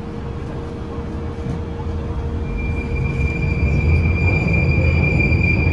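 Bakerloo line tube train (1972 Stock) pulling out and running, its low rumble growing louder. A steady high-pitched wheel squeal sets in about two and a half seconds in.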